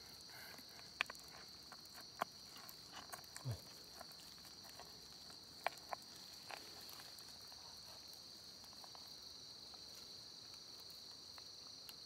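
Steady high-pitched insect chorus from the forest, with a few faint short clicks and scrapes in the first half as hands dig in loose soil.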